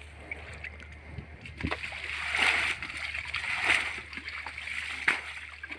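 Shallow muddy water splashing and sloshing as a bucket is dipped and worked through it, in surges about two and three and a half seconds in, with a sharp knock near the end.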